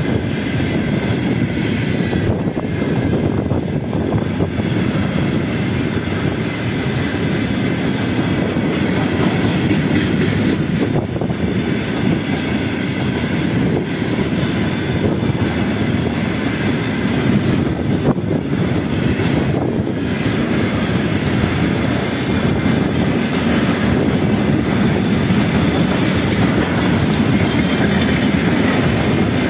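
Loud, steady rolling noise of a long freight train of tank cars passing close by, their wheels running on the rails, with occasional knocks.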